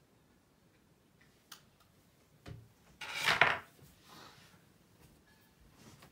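Make-up items being handled on a vanity tabletop: a light click, a knock, then a short loud clattering rummage about three seconds in, followed by fainter handling.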